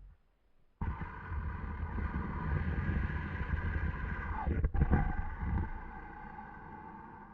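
Snoring beetle toy playing its snore on extremely low batteries: a long, rumbling snore that starts after a short silence about a second in, breaks briefly near the middle and fades toward the end.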